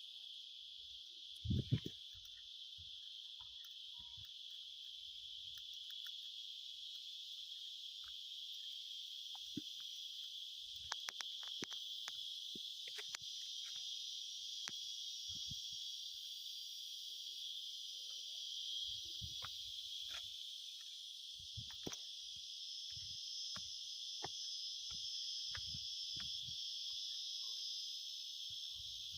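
A steady, high-pitched chorus of insects shrilling in the forest, with scattered faint knocks and thumps over it.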